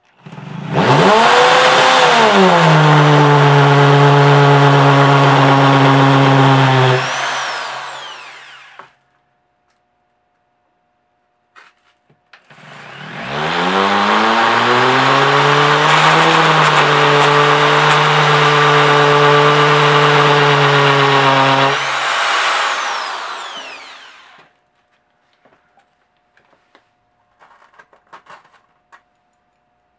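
Corded Ryobi drill with a masonry bit boring anchor holes into a concrete floor. It runs twice: each time the motor spins up in pitch, runs steadily for several seconds under load and then winds down.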